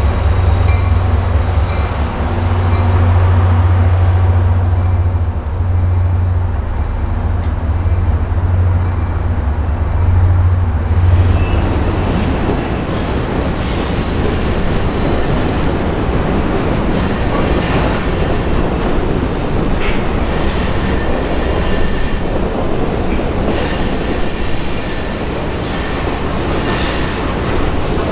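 Steam excursion train passing close by. A heavy low rumble fills roughly the first eleven seconds, then the rail cars roll past with their steel wheels squealing against the rails.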